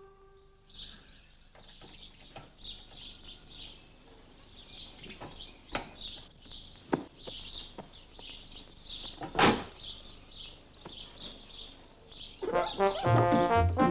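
Birds chirping in the background, with a few sharp knocks and clicks, the loudest about nine and a half seconds in. Brass-band music comes in near the end.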